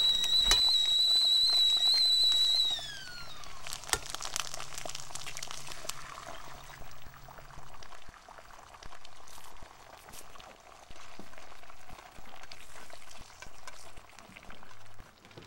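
A steady high whistle that slides down in pitch and dies away about three seconds in, then eggs and bacon sizzling in a frying pan, with scattered light clicks.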